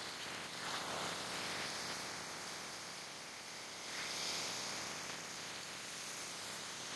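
Steady hiss of water rushing along the hull of a sailing yacht moving under sail, swelling briefly about a second in and again about four seconds in.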